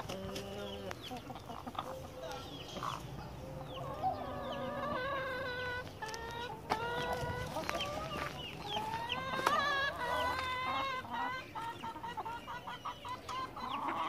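A flock of domestic hens clucking, many short calls overlapping, busiest through the middle.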